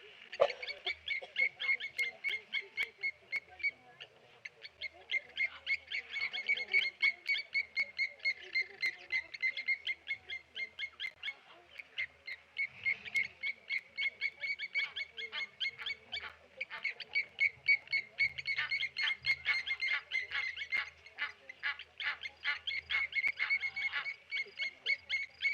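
Blacksmith lapwings giving short, high alarm calls over and over, several a second, with brief lulls, as they mob a tawny eagle.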